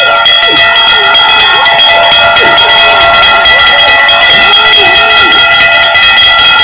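A metal bell rung in rapid, continuous strokes with a clanging ring, over shouting crowd voices; it starts and stops abruptly.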